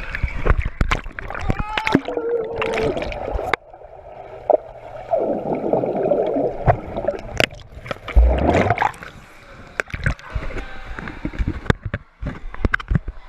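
Boys' voices at first, then a sudden change to an underwater sound: gurgling and bubbling as a swimmer blows air out through his mouth. Near the end, splashing and sharp knocks as the camera comes back up into the pool water.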